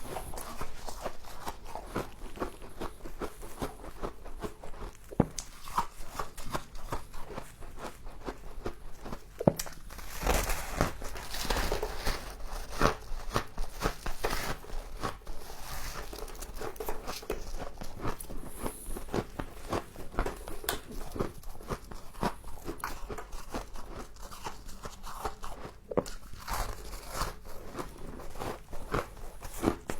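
Frost being bitten and chewed close to the microphone: a steady run of small, irregular crunches and crackles, a little louder about a third of the way in.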